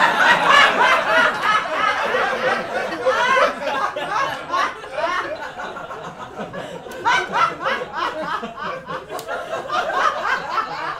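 Audience laughing, many voices at once. The laughter is loudest at first, eases a little midway, swells again about seven seconds in, then thins out.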